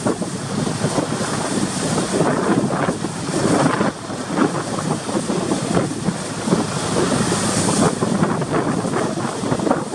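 Strong wind gusting against the microphone over the rush of a rough, heaving sea, without a steady engine tone.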